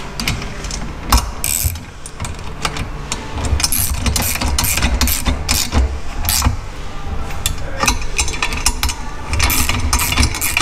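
Socket ratchet clicking in repeated runs of strokes as nylock nuts are tightened onto the bolts of a boat's jack plate mount bracket.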